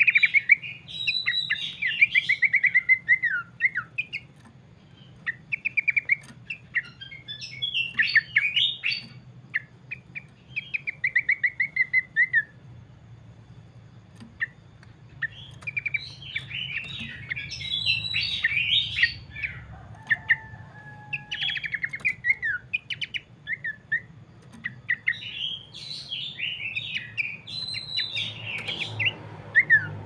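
Pelanduk semak (Horsfield's babbler) singing in bursts of loud, rapid chattering phrases, several ending in quick descending trills, with a pause of a few seconds near the middle.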